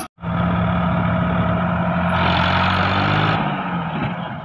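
Sonalika DI 35 tractor's diesel engine running steadily while working with the mud loader. It grows louder about two seconds in and eases off near the end.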